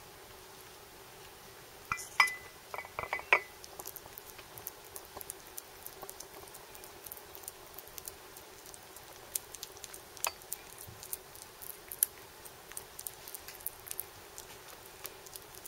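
A kitten eating weaning food from a dish: a quick run of clinks against the dish about two seconds in, then scattered small clicks and ticks of eating for the rest of the time.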